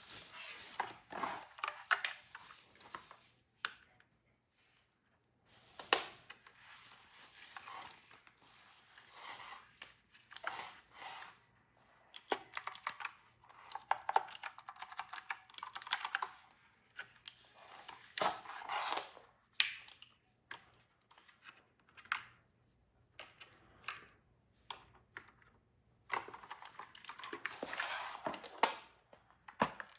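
Mechanical keyboard keys clacking in irregular runs, mixed with stretches of rustling as the keyboard and its packaging are handled.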